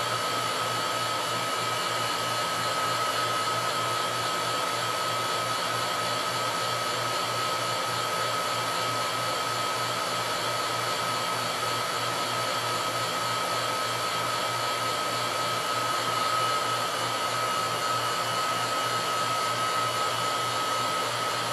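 A vacuum pump running steadily, with a constant high whine held over the noise and a low hum underneath, during a high-voltage plasma test under vacuum.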